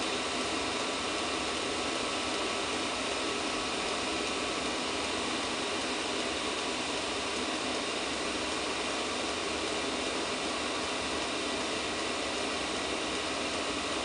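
Chinese planar-style 5 kW diesel air heater running, its blower fan giving a steady, even rush of air with no change in pitch or level.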